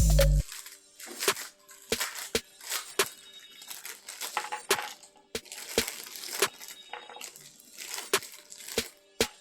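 Background music cuts off just after the start. Then come irregular sharp clicks and knocks of hard plastic, with light rustling between them, as a toy foam-dart blaster and its parts are handled.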